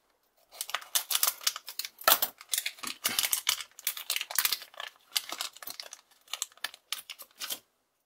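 Metallized anti-static plastic bags crinkling as they are handled and torn open by hand: a quick, irregular run of small crackles that stops shortly before the end.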